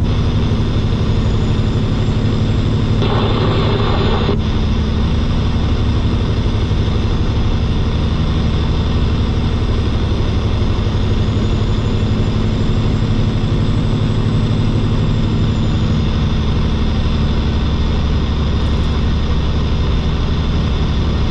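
Semi truck's diesel engine running steadily at highway cruising speed, with constant road and wind noise. A brief rush of extra noise comes about three seconds in and lasts about a second.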